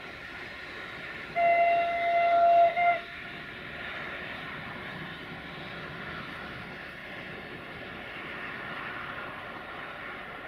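Siemens Desiro VT642 diesel multiple unit sounding its horn, one chord held for about a second and a half that ends in a brief second blast, followed by the steady running noise of the approaching railcar.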